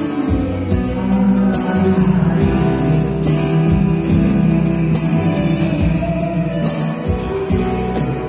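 Live band music from electronic keyboards and acoustic guitar, playing sustained chords over light percussion hits about twice a second.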